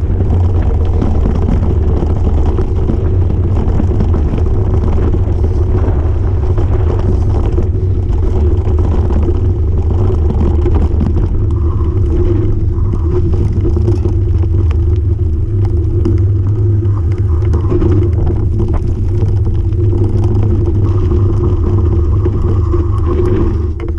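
Steady wind rumble on an action-camera microphone over the rattle and crunch of a mountain bike riding fast down a rough dirt singletrack.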